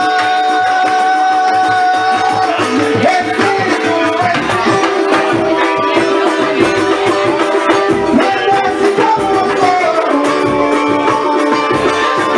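Live Brazilian band: hand drums and a pandeiro keep a steady, busy beat under held sung or played melody lines.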